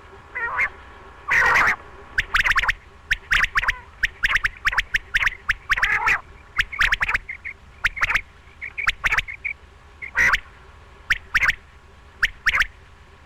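Quail calling: a quick run of short, sharp call notes, mostly in groups of two or three, repeated throughout with a few longer, louder calls among them.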